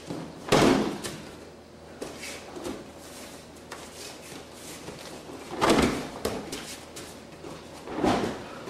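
A person in a gi being thrown and landing on the mat in aikido breakfalls: three heavy slaps and thuds, about half a second in, near the sixth second, and near the end.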